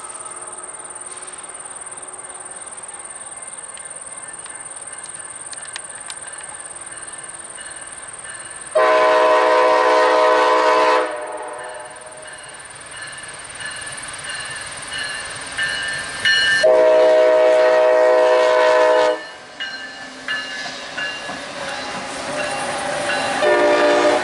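Union Pacific diesel locomotive horn sounding several notes at once: two long blasts, a few seconds apart, then a short one near the end, the opening of the long-long-short-long grade-crossing signal. Between the blasts the approaching train's engine and wheel noise grows louder.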